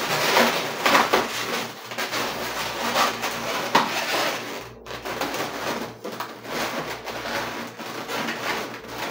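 Twisted 260 latex balloons rubbing and squeaking against each other as hands squeeze and shift the balloon flowers of a bouquet, in an irregular run of scrapes.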